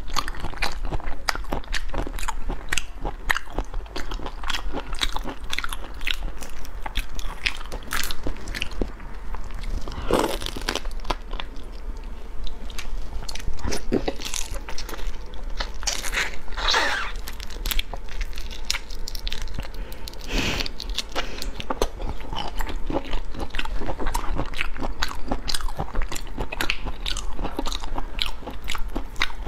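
Close-miked eating of marinated raw shrimp: biting, chewing and crunching through the shells in dense, rapid clicks and crackles, with a few longer sucking sounds now and then.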